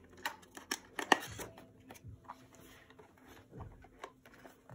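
Light taps, clicks and rustling of cardboard card-deck boxes being handled and moved over a plastic box insert, with one sharper tap about a second in.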